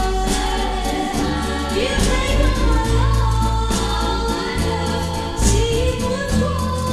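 1963 pop ballad recording: sung vocals gliding between held notes over a band with a steady bass line.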